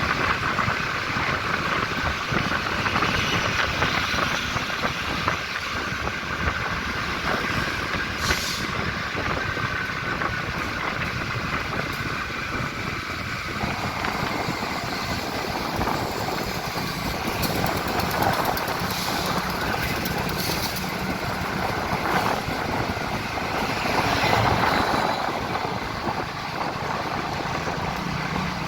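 Diesel engines of two GE CM20EMP (CC 206) diesel-electric locomotives running together, a loud, continuous engine sound that shifts in character about halfway through.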